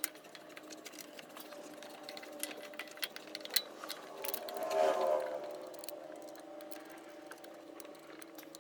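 Hand tools working on the engine's belt tensioner and idler pulley mounting: small irregular metal clicks and clinks over a steady hum, with a louder rustling swell about five seconds in.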